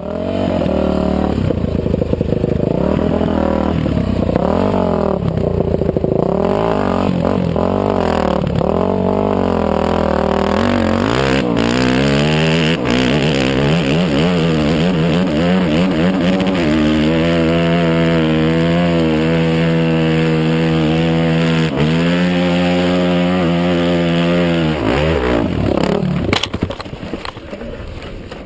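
Yamaha YZ450F four-stroke single-cylinder dirt bike engine, heard from the rider's helmet camera, revving up and down on and off the throttle, then holding a steadier note with small wobbles. About two seconds before the end the engine note breaks off with a sharp knock and clatter as the bike goes down in a crash.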